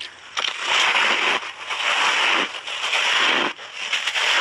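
Crunching of refrozen pink shaved ice being chewed in big bites, in about four crunching bouts of roughly a second each.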